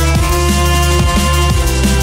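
Electronic background music with a heavy bass line and a steady, fast drum beat.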